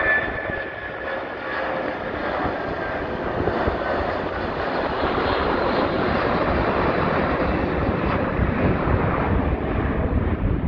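Boeing 757-200 freighter's Pratt & Whitney PW2040 turbofans at climb thrust just after takeoff: a fan whine fading over the first few seconds into a broad jet roar that grows, with a deeper rumble building near the end.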